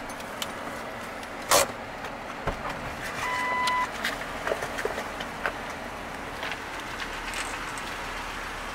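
Jeep running at idle, heard from inside the cab, with a steady low noise. There is a sharp click about a second and a half in, and a short electronic beep around three seconds in.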